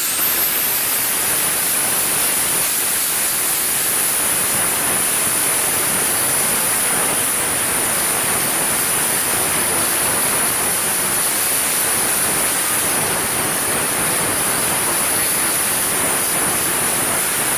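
Compressed-air blow gun hissing steadily with a high whistle as it blows rust and dust off a rusty brake rotor.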